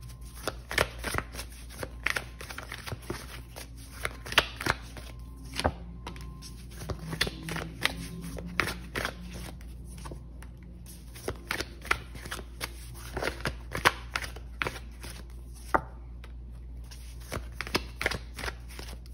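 Tarot cards being shuffled and handled: a run of irregular soft flicks and taps.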